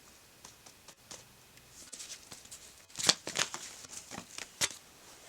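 Tarot cards being handled: a few short papery slides and snaps, a cluster about three seconds in and one more near the end.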